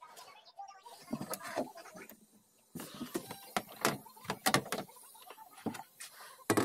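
Handling noise: a run of irregular knocks and clunks, with the loudest knock near the end.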